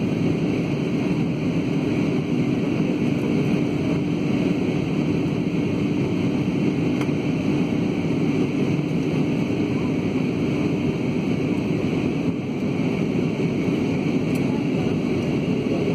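Steady roar of a jet airliner's engines and rushing air heard inside the passenger cabin, with a low steady hum under it that fades about twelve seconds in.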